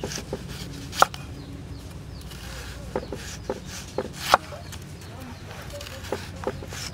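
Kitchen knife slicing through a peeled onion and knocking on a wooden chopping block, a sharp knock with each cut. Seven cuts come at uneven intervals, the loudest about a second in and just after four seconds.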